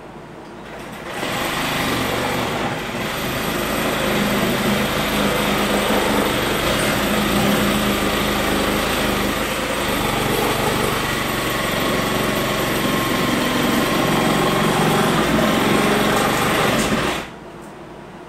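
A motor running steadily and loudly, starting about a second in and cutting off suddenly near the end.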